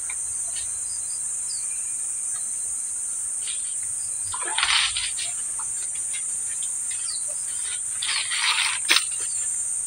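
Steady high-pitched drone of insects, with a couple of brief rustling noises and a single sharp click near the end.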